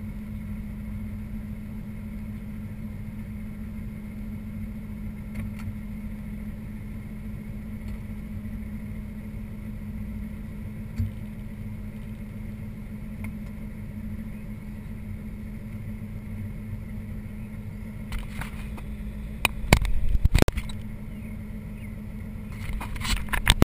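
A car engine idling steadily. About eighteen seconds in come a series of sharp knocks and bumps close to the microphone, with a few more right at the end.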